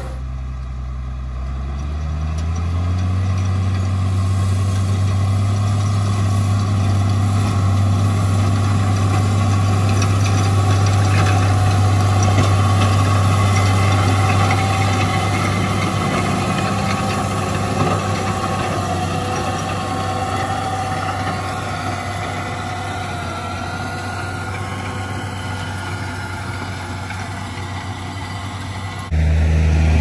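Case IH Magnum 7240 Pro tractor's six-cylinder diesel engine running steadily under load as it pulls a seed drill, its note rising about two seconds in. It grows louder as the tractor passes close by around the middle, then fades as it moves away.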